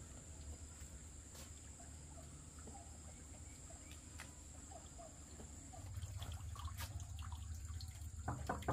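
Faint outdoor ambience: a steady high-pitched insect drone over a low rumble that grows slightly louder about six seconds in, with a few light clicks.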